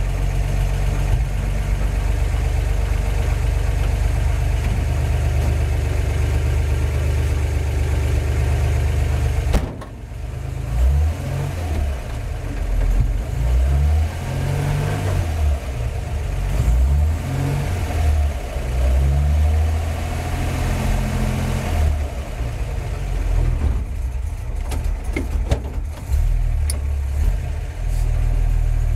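1949 Chevy 3100 pickup running in gear on jack stands with its rear wheels spinning free: the engine runs evenly, breaks off suddenly about ten seconds in, then its speed rises and falls over and over. The gearbox and driveline make no unusual sounds, to the owner's ear.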